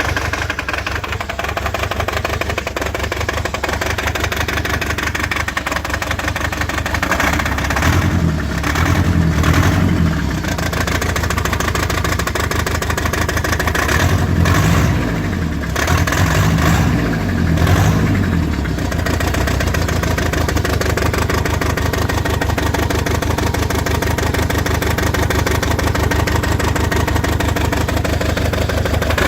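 Toyota 22R-series four-cylinder engine running with a misfire: a steady uneven idle, with the throttle opened three times (about a third of the way in, around halfway, and again shortly after) before it settles back to idle.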